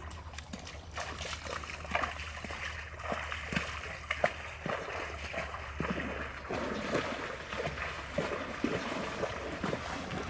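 River water splashing and trickling, with many small irregular splashes and clicks over a steady rush.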